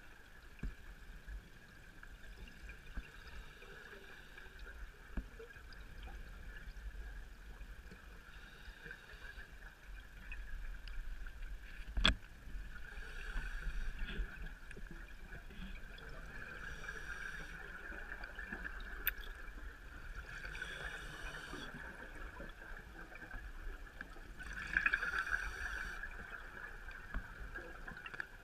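Underwater recording of scuba divers' open-circuit regulators: exhaled air bubbles out in gurgling bursts every three to four seconds over a steady muffled hiss. A single sharp click comes about twelve seconds in.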